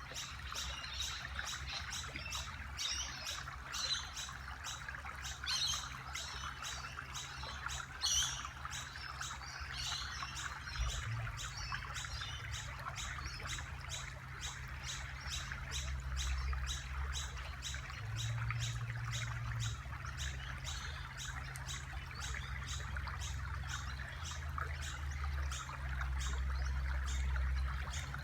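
Outdoor nature sounds: high chirps repeated quickly and evenly, over a steady hiss of trickling water and a low rumble.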